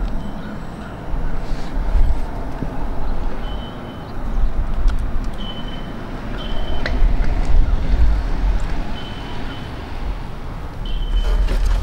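Low, surging rumble of outdoor background noise, with a few short, high-pitched beeps at irregular moments.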